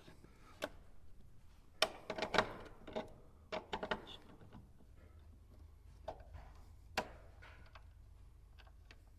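Scattered metal clicks and knocks from work at an electrical panel, as stiff 4/0 aluminum wires are worked into the panel's lugs and tightened. The sounds come irregularly, a few in quick clusters, with lulls between.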